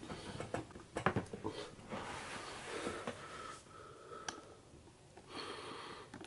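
Handling noise as a sneaker is set down on a cardboard shoebox: a cluster of knocks and taps in the first second and a half, a single click a little after four seconds, and breathy hissing from a person breathing close to the microphone.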